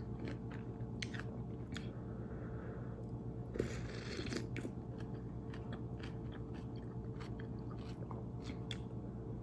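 Close-up mukbang eating sounds: chewing spicy noodles with wet mouth clicks, and a louder crunchy or slurping burst about three and a half seconds in. A steady low hum runs underneath.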